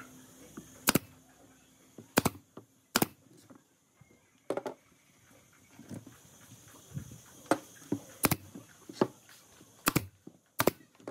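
Pneumatic brad nailer firing brads into pine boards: sharp single cracks, about nine in all, spaced irregularly with a pause of a few seconds in the middle, with lighter knocks of the wood being handled between shots.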